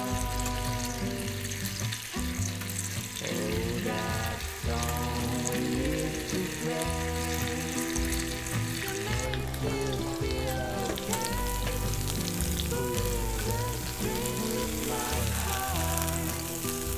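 Cheese-filled panini sizzling between the hot plates of an electric panini press, a steady crackling hiss, with background music playing over it.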